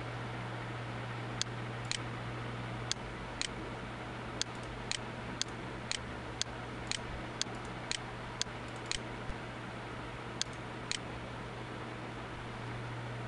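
A run of short, sharp clicks, mostly two a second on an even rhythm, stopping near the end, over a steady hiss and low hum.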